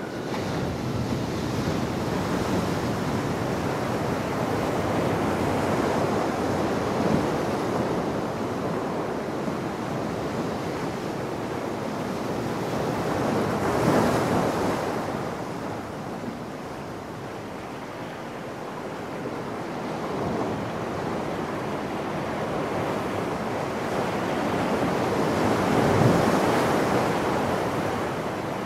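Ocean surf breaking and washing around shoreline rocks: a steady rush that swells to louder peaks about halfway through and again near the end.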